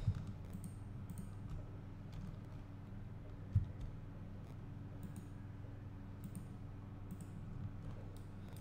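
Scattered faint computer mouse clicks over a steady low electrical hum, with a dull thump about three and a half seconds in.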